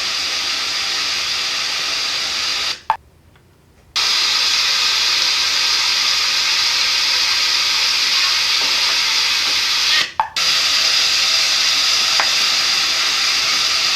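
Steady rush of water pouring over a small river falls, a loud even hiss. It drops out suddenly twice, for about a second and then briefly.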